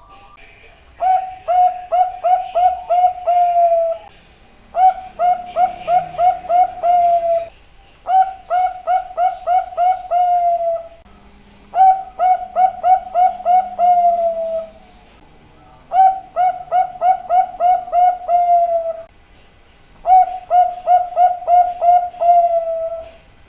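Zebra dove (perkutut) singing: a phrase of quick staccato coos ending in one longer, falling note, repeated six times with short pauses of about a second between phrases.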